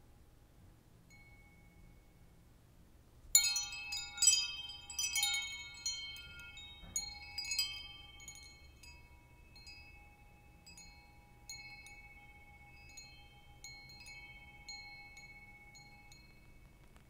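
Metal wind chimes: after about three seconds of quiet, several rods ring together in a cluster of bright tones at different pitches, then single tinkles sound now and then and die away.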